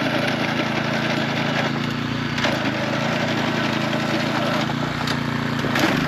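Wood knocking and rustling while drying racks and rice sheaves are handled, with a steady low hum beneath and a few sharp knocks.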